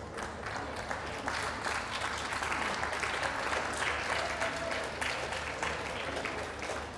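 Ringside audience applauding, building up in the first second and easing off near the end.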